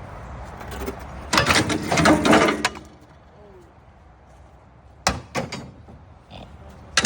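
Scrap metal being thrown into a bin: a rough metallic clatter lasting about a second and a half, then a few sharp knocks, the loudest near the end.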